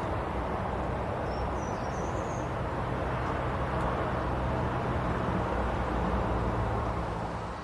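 Steady low rumbling noise, with a short, faint high bird chirp about two seconds in.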